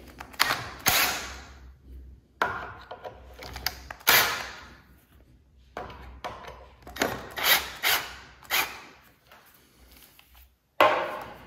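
Hand work on a miter saw's belt drive with a cordless drill: a series of irregular knocks, scrapes and rustles, with a faint low hum underneath.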